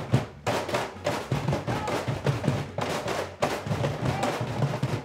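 Several Peruvian cajones played together: a fast run of deep bass slaps and sharp wooden strikes.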